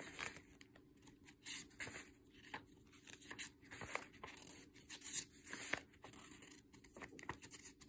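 A stack of small square sheets of thin printed paper being leafed through by hand, each sheet rustling and sliding against the next in short swishes at irregular intervals.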